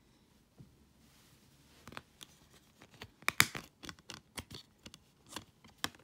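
Clear plastic Blu-ray case and disc being handled: a run of sharp plastic clicks and short scrapes as a hand works the disc on its centre hub, the loudest cluster about three and a half seconds in.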